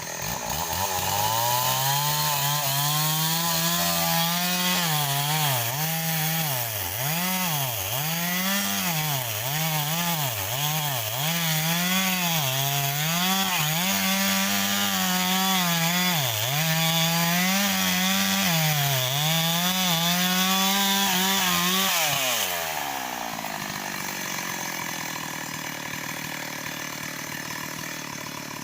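Stihl 038 two-stroke chainsaw at full throttle cutting into wood, its engine speed dipping and recovering again and again under load. After about twenty seconds the throttle is released and it drops back to idle.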